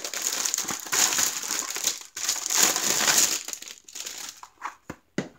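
Clear plastic shrink-wrap film being pulled off a plastic storage case, crinkling and crackling loudly for about three and a half seconds, then dying down to a few light knocks near the end.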